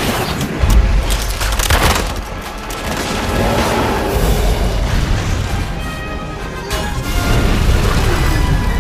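Film score mixed with action sound effects: deep booms and crashing impacts, the loudest boom about a second in. Sustained orchestral tones take over near the end.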